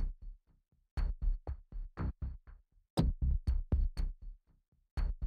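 Electronic drum loop from a cinematic loops sample pack: a quick pattern of drum hits over deep bass thumps. The pattern plays three times, each after a short pause.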